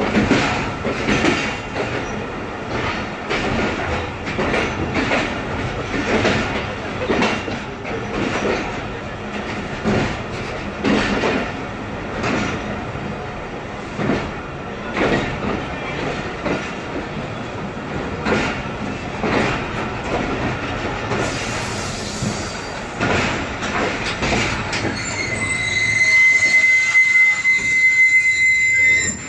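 Passenger coach rolling slowly along the track, its wheels rumbling and clacking over rail joints at uneven intervals. Near the end a steady high metallic squeal from the wheels sets in and grows louder.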